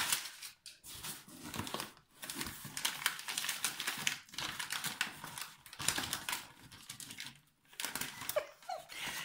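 Packing paper rustling and crinkling in irregular bursts as it is unwrapped by hand.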